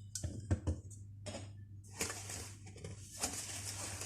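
Sugar being spooned and tipped into a mixing bowl: a few sharp clinks of spoon on bowl, then short grainy pouring sounds. A steady scraping of stirring starts about three seconds in.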